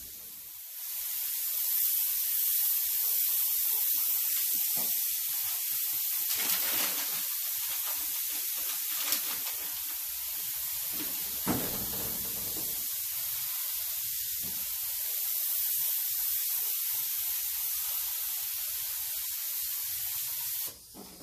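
Paint spray gun hissing steadily as it lays a light coat of paint on the bus's interior panels. The hiss starts about a second in and cuts off about a second before the end.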